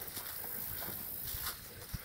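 Footsteps through tall dry grass and weeds, stalks brushing and rustling with each step, and a sharper thump near the end.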